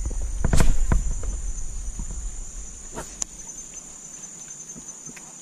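Insects chirring steadily in a high-pitched band. A few sharp knocks and a low rumble come in the first second or so, with one more click about three seconds in.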